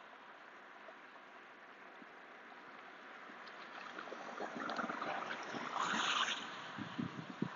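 Street ambience with a steady hiss; a passing vehicle's tyre noise swells to a peak about six seconds in and fades. Low irregular thumps come in near the end.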